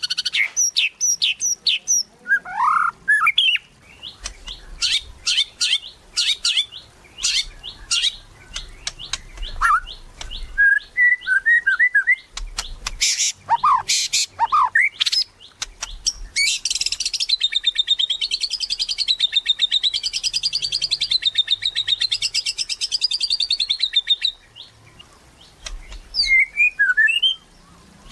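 White-rumped shama (murai batu) singing a varied song: quick runs of sharp notes and short whistles, then a long rattling trill that wavers up and down in pitch for about eight seconds, followed by a few more notes near the end.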